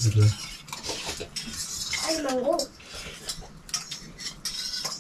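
Metal spoons clinking and scraping against stainless steel bowls and cups while people eat, in many short, irregular clicks.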